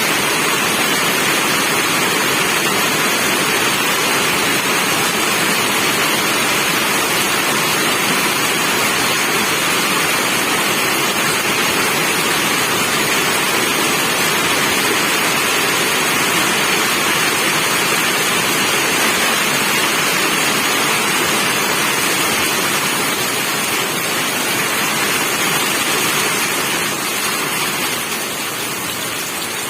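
Steady heavy rain falling as a dense, even hiss, easing slightly near the end.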